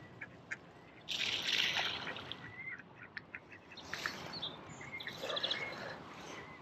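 Handling noise as a soft-plastic worm is threaded onto a fishing hook: gloved hands and clothing rustling, loudest about a second in, with small clicks. Short bird chirps sound in the background a few times.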